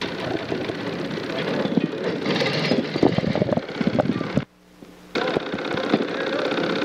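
Rattling, clattering noise of electric railway equipment, full of sharp clicks. The sound drops out briefly about four and a half seconds in, then comes back steadier.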